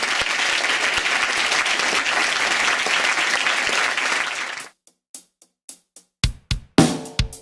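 Audience applauding, a dense steady clapping that cuts off abruptly after about four and a half seconds. After a short silence, the sharp drum hits of a jingle start near the end.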